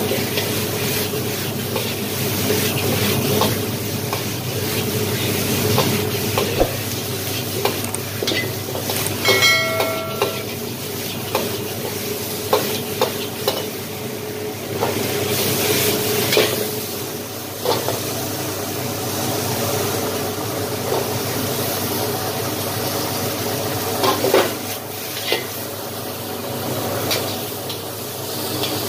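Vegetables sizzling in a wok over a gas wok burner as they are stir-fried with a metal ladle, which scrapes and clacks against the wok again and again. A short ringing metal tone sounds about nine seconds in.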